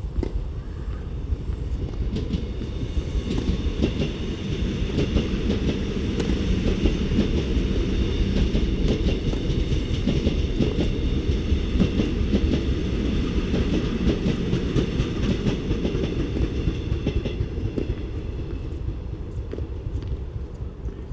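A train passing: a heavy rumble with rapid clicking that builds over a few seconds, holds, and fades near the end, with a faint high-pitched wheel squeal over it.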